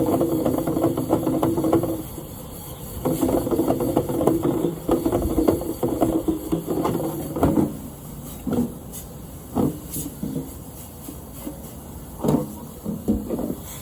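Hand work on a furnace blower: fast, rasping scraping and rattling in two long runs, then a series of separate knocks and clunks.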